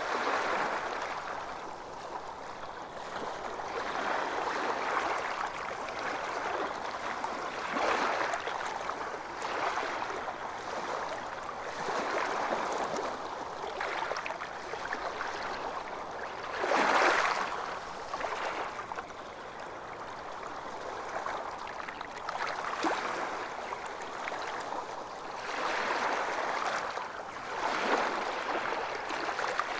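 Calm water lapping and splashing in gentle waves, swelling and fading every couple of seconds, with one louder splash about seventeen seconds in.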